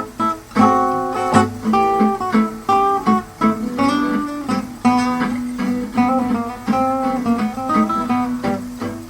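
Acoustic guitar playing a waltz: a picked melody of quick notes over a repeating bass line, with strummed chords.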